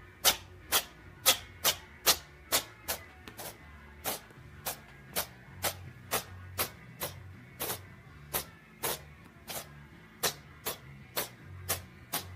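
Background music with a steady beat: sharp percussive hits about twice a second over a low bass pulse.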